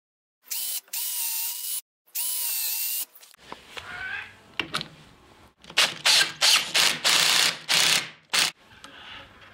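Cordless drill boring 3/16-inch pilot holes into a poplar strip: two steady high whines of about a second each. From about six seconds in, a run of short trigger bursts follows as the drill works the 3-inch drywall screws into the holes.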